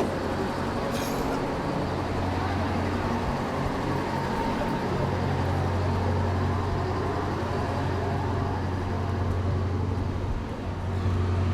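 A vehicle engine idling with a steady low hum, over general street noise.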